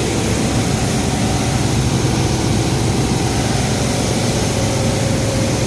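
Ford EcoSport engine running steadily at idle, an engine with a misfire.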